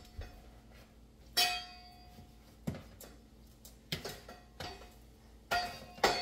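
A metal knife clinking and scraping against a mixing bowl while chicken breasts are turned in Cajun seasoning. About half a dozen knocks come at uneven intervals; the loudest, about a second and a half in, rings briefly.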